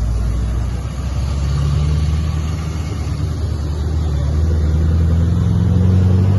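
Toyota Land Cruiser 80 Series engine running under load, its pitch climbing slowly as it pulls.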